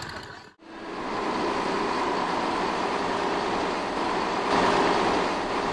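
Heavy truck's engine running under load in a steady, noisy drone. It starts after a brief break just under a second in and grows a little louder about four and a half seconds in.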